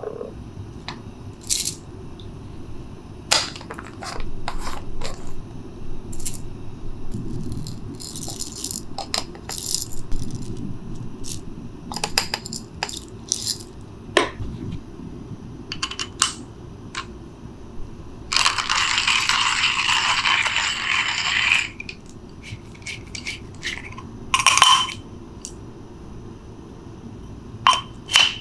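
Whole coffee beans poured from a canister into a metal hand coffee grinder, a dense rattle lasting about three seconds two-thirds of the way through. Around it are scattered clicks and taps of the grinder parts and canister being handled.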